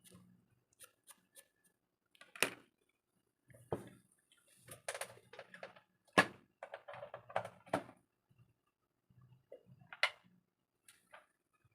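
Scattered sharp clicks and light knocks of small hard parts being handled on a repair bench, with a quick run of smaller clicks in the middle.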